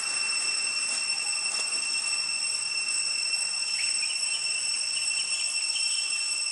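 Cicadas droning in the forest: a steady, high-pitched buzz that holds without a break.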